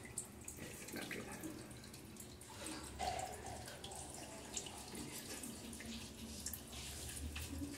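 Faint wet rubbing of ice cubes massaged over the skin of a face, with small scattered clicks and drips of melt water.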